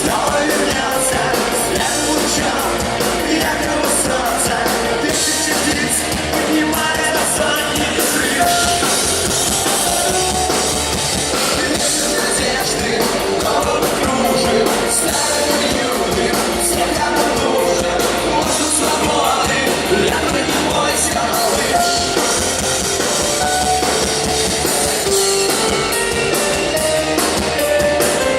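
Live rock band playing a song at full volume, with a drum kit driving it and a singing voice over the band.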